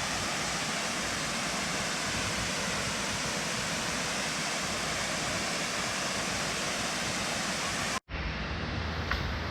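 Steady rushing of a small waterfall cascade. About eight seconds in it cuts abruptly to a duller, lower rumbling noise.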